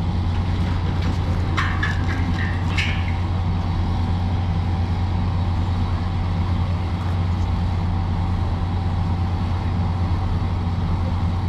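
Steady low hum of the stopped passenger train's diesel engine idling, with a few brief higher clinks or calls about a second and a half to three seconds in.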